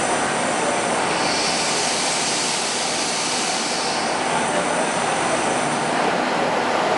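Diesel railcar standing at a station platform with its engines running, a steady mechanical drone. A louder hiss rises over it from about one second in and eases off near four seconds.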